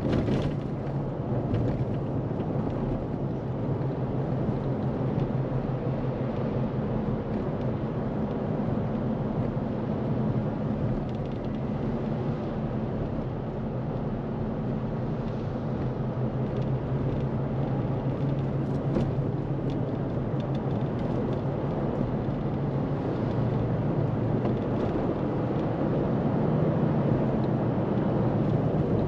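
A vehicle driving at a steady speed: a continuous engine drone and road noise with no change in pitch.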